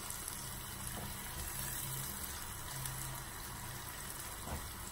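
Sliced onion frying in oil in a small saucepan, a steady sizzle, as it is stirred with a spatula while it browns for a tadka.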